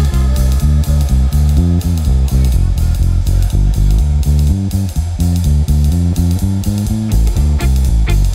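Live electro-swing band playing a swing groove: an electric bass guitar stepping through a steady bass line, a drum kit keeping an even beat on cymbals, and a hollow-body electric guitar strumming.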